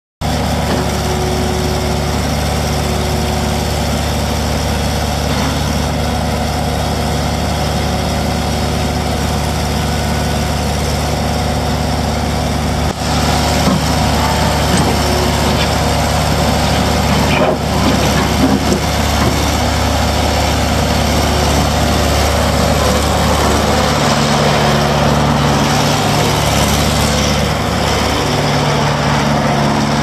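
Case 1845C skid steer loader's diesel engine idling steadily, then revving higher and louder from a little under halfway through as the machine is put to work and driven.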